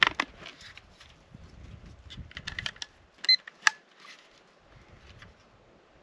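Small hard objects clicking and clacking against each other and against a clear plastic storage bin as they are handled and sorted, with a few sharper knocks and a short high squeak a little over three seconds in. The clatter dies away in the last couple of seconds.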